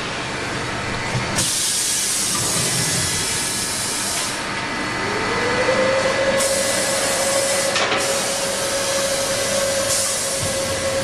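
Industrial machinery running with a loud, steady hiss. The hiss grows brighter and drops back several times, switching abruptly. About five seconds in, a motor-like whine rises and then holds one pitch.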